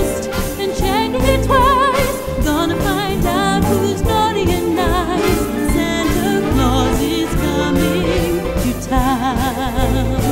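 Upbeat Christmas song playing as background music: a singing voice with vibrato over a full band.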